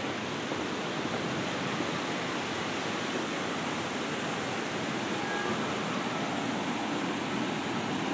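Steady, even rushing noise of the open city, with no distinct events standing out.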